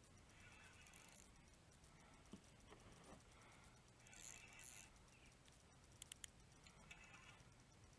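Near silence with a few faint, brief hisses and three quick sharp clicks about six seconds in.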